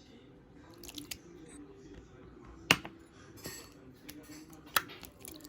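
Slime being played with by hand, making scattered sharp clicks and pops; the loudest come about halfway through and near the end.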